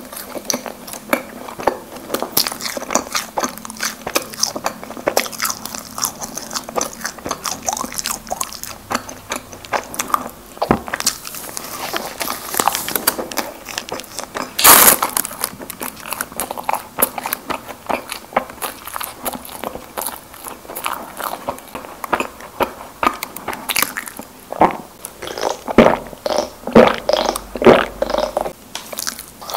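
Close-miked eating of Krispy Kreme doughnuts: biting and chewing, with many small irregular mouth clicks and a louder burst about halfway through.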